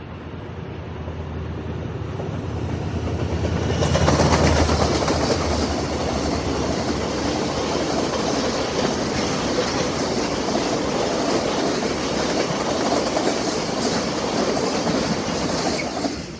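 A diesel-electric freight locomotive approaches and passes close by, its engine hum rising to a peak about four seconds in. A long line of tank wagons then rolls past with steady wheel-on-rail noise, which drops off just before the end as the last wagon clears.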